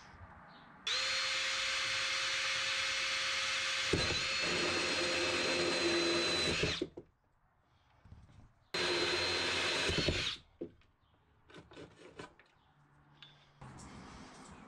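Cordless drill boring a hole through a wooden cabinet panel. It runs steadily for about six seconds, with a lower note joining partway through as the bit cuts, then makes a second, shorter run of about a second and a half. A few light clicks from handling follow.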